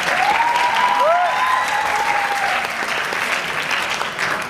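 Audience applauding, with a few long whoops and cheers in the first couple of seconds.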